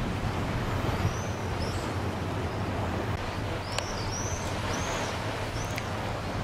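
A boat's engine runs steadily with water and wind noise, while a bird gives about half a dozen short, high chirps from about a second in.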